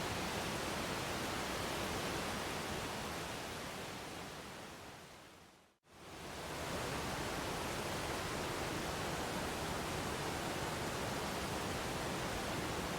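Waterfall rushing steadily. A few seconds in it fades away to a moment of silence and then swells quickly back to full.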